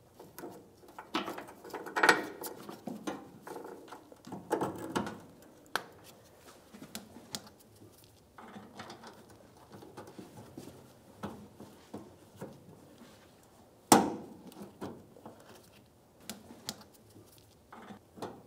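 Clinks, rattles and knocks of a metal fuel tank strap being worked up and fitted over its bolt against the truck's frame. There is a sharp knock about two seconds in and a louder one about fourteen seconds in.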